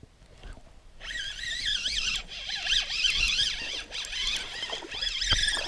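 Spinning reel being cranked quickly, its gears giving a continuous whirr whose pitch wavers with the cranking, as a small bass is reeled in.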